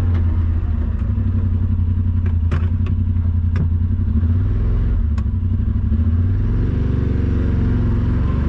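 Side-by-side UTV engine, the RMAX 1000's twin, running steadily under load as it crawls a rough trail. A few sharp knocks of clatter come through in the first half. The engine note shifts near the end.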